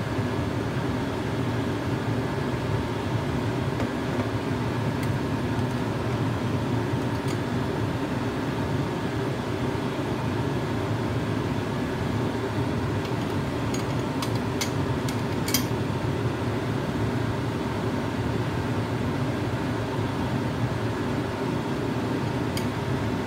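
Steady hum and rush of a fan running, unchanging throughout. About two-thirds of the way through comes a quick cluster of light clicks as the glass petri dish and bottle are handled, with one more click near the end.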